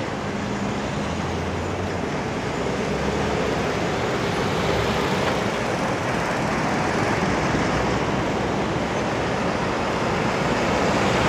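Heavy diesel lorries pulling past in slow traffic, their engines humming low over steady road noise; a second lorry passes near the end.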